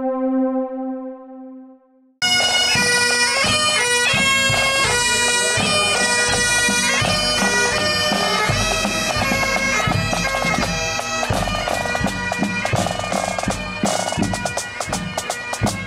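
A single held note that fades over about two seconds, then, after an abrupt cut, a pipe band's bagpipes and drums playing together.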